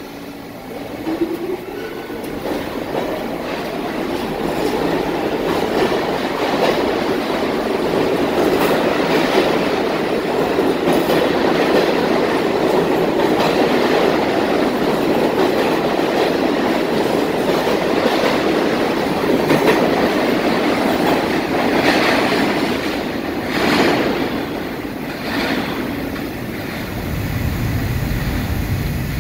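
NYC subway train pulling out of the station: a rising whine as it gets under way, then the steady rush and clatter of the cars' wheels on the rails as they pass, with sharper squeals and clacks a few seconds before the end. Near the end a deep rumble comes in as the next train approaches.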